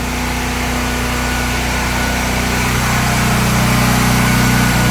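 Honda generator's engine running steadily, no longer misfiring. It gets a little louder about three seconds in.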